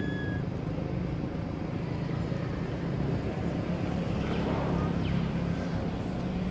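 Steady low rumble of motor traffic or a running vehicle engine, swelling slightly about four to five seconds in.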